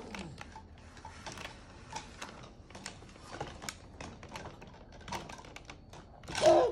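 Irregular light clicks and taps of a hard plastic toy dinosaur being handled, its head and jaw pushed and moved by small hands. Near the end, a brief louder vocal sound.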